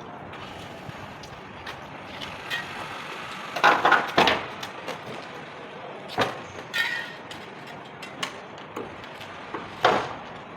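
Knocks and clatter of parts being handled and fitted while assembling a floor-standing air conditioner indoor unit, loudest in a cluster a little under four seconds in and again near the end, over a steady background hiss.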